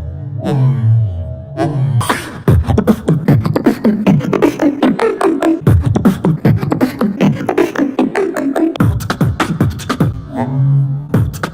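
Vocal beatboxing: a low droning bass hum, then a quick run of mouth-made clicks and snare hits over gliding vocal tones, with the bass hum coming back near the end.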